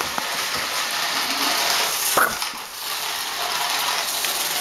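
Small remote-control toy car's electric motor and gears whirring as it drives over floor tiles, with one short dog yip about two seconds in.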